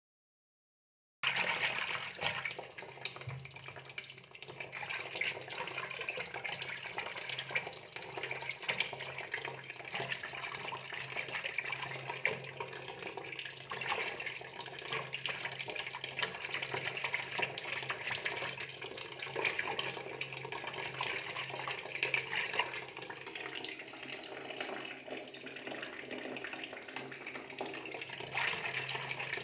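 Running water splashing steadily, starting suddenly about a second in, over a steady low hum.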